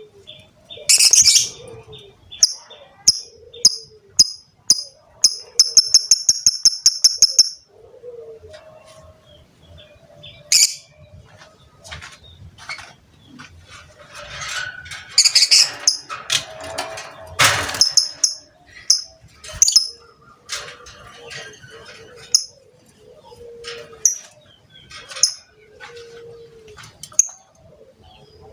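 Lovebird calling: sharp, high chirps and squawks, with a fast, even run of chirps about five seconds in, typical of the chattering 'ngekek' that lovebird keepers prize.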